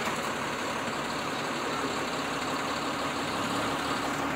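Diesel engine of a Tata tipper truck idling steadily.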